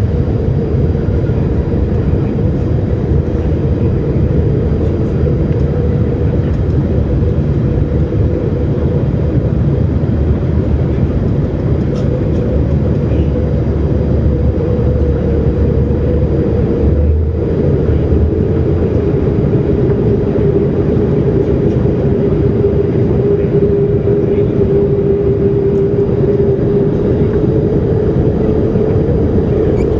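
Boeing 787 Dreamliner cabin noise during departure: the jet engines' steady roar and rush of air, with a hum whose pitch sags slightly in the second half and rises again near the end.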